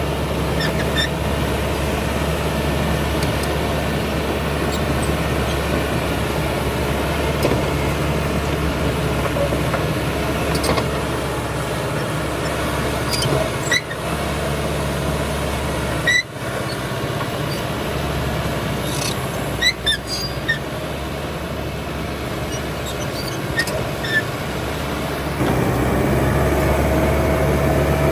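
Caterpillar D6R XL bulldozer's diesel engine running steadily, with a few short high squeaks in the middle; the engine grows louder near the end.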